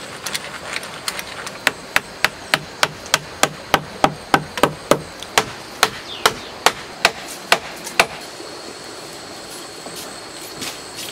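A hatchet used as a hammer, knocking wood on wood: about twenty sharp blows, roughly three a second, as a pole is driven into place in a wooden shelter frame. A few lighter taps come first, and the blows stop about eight seconds in.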